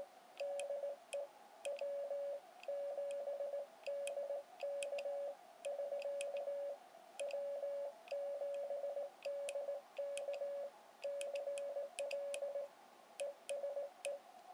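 Morse code sent on a Vibroplex Brass Racer iambic paddle and heard as the transceiver's sidetone: a single steady-pitched beep keyed into rapid dits and dahs, with light clicks as the paddle levers are worked.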